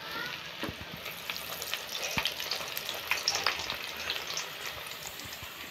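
Hot oil sizzling and crackling densely around a perforated steel ladle of white flakes deep-frying in a kadai, the flakes puffing up in the oil; the crackle eases slightly toward the end.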